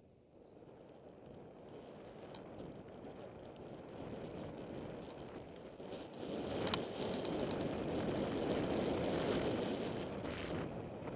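Wind buffeting the microphone of a camera riding on a mountain bike, with tyres rolling over gravel and grass, growing louder as the bike gathers speed downhill. Small rattles come through, and one sharp clack about two-thirds of the way in.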